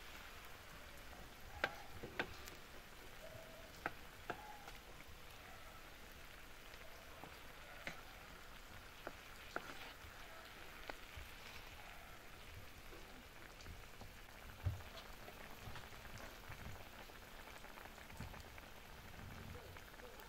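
Chicken legs and onions simmering in a Coca-Cola sauce in a large pan over an open fire: a faint, steady sizzling and bubbling, with scattered sharp pops and clicks.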